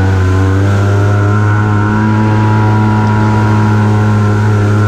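Arctic Cat Wildcat Trail 700 side-by-side's engine running under load at a steady, unchanging pitch as the machine drives through muddy water and sand.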